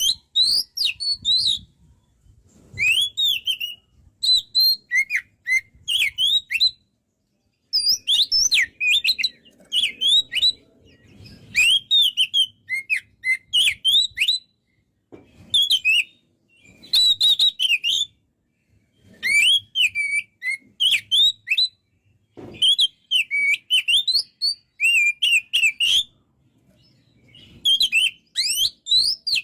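Oriental magpie-robin (kacer) singing vigorously: phrases of quick, varied whistled notes that swoop up and down, each a second or two long, with short pauses between.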